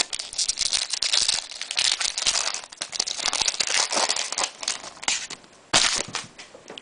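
Rapid crinkling and rustling of trading cards and their pack wrapper being handled, with a louder crinkle burst near the end.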